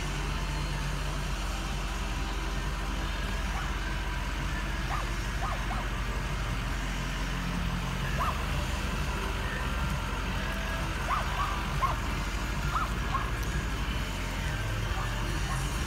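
Steady low hum of a car running slowly, heard from inside the vehicle, with a few short faint high chirps scattered through the middle.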